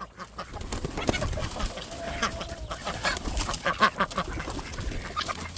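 Farmyard poultry, chickens and ducks, clucking and calling, a steady patter of many short calls with one short held call about two seconds in.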